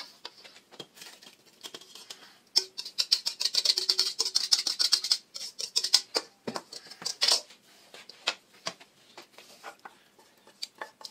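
A wire whisk scraping and rattling against a stainless steel mixing bowl while batter is scraped out into a pot: a dense run of quick metallic clicks and scrapes in the middle. After that come sparser scrapes and taps as a wooden spoon scrapes cooked onions out of a pan.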